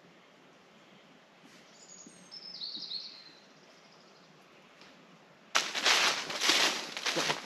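A songbird sings a short phrase of a few high notes stepping down in pitch, about two seconds in. A little past the middle, loud irregular footsteps on the trail start suddenly and take over.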